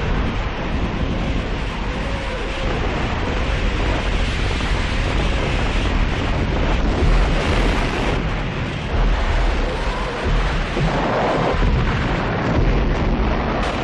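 Massed artillery and Katyusha rocket-launcher barrage: a continuous heavy rumble of firing and explosions, with a few faint gliding whistles.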